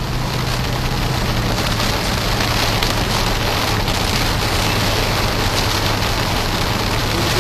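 Heavy rain falling on a moving car's windshield and roof, heard from inside the cabin as a steady, even rush over the car's constant low hum.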